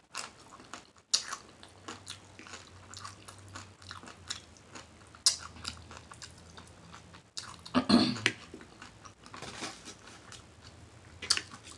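Close-miked eating: chewing with wet lip smacks and crisp crunches of tortilla chips, in a quick irregular run of short clicks, loudest about eight seconds in.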